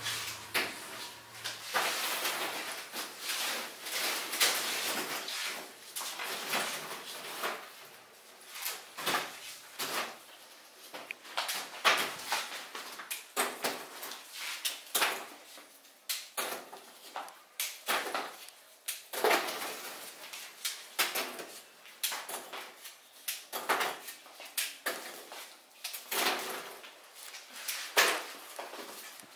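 Hand-pulled candy being worked: an irregular string of short smacks and knocks, about one or two a second, as the sticky candy mass is pulled over a hook and stretched into ropes.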